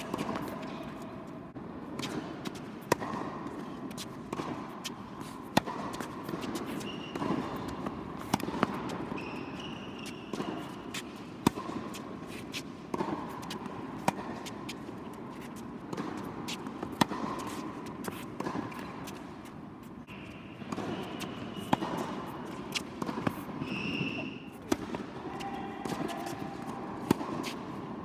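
Tennis rally on an indoor hard court: sharp pops of the ball struck by rackets and bouncing on the court, one every second or two. Now and then there are short high squeaks from shoes on the court.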